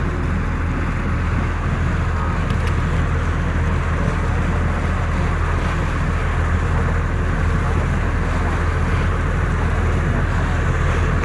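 Motor ship's engine running under way: a steady low drone with a noisy rush over it.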